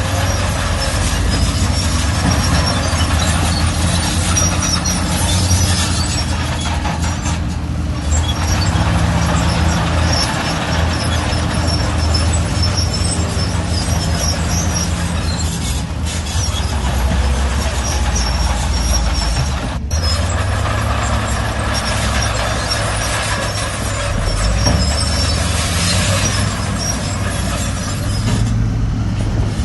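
Shantui crawler bulldozer's diesel engine running steadily under load, with high metallic squeaking and clanking from its steel tracks.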